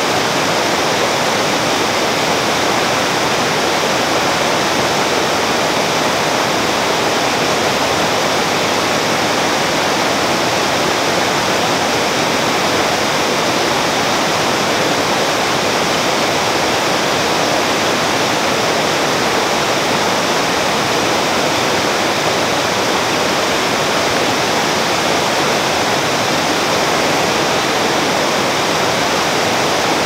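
Two small waterfalls spilling over rocks into a stream, a steady, even rush of water that does not change.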